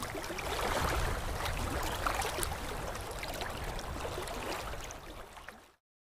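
Rushing, water-like noise of a logo-animation sound effect with a few faint ticks, slowly fading and then cutting to dead silence near the end.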